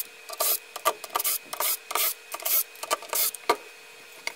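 Cordless drill-driver backing screws out of an aluminium sheet fastened to a chipboard spoilboard, in a fast run of short whirring, rasping bursts, with a faint steady hum beneath. The bursts stop shortly before the end.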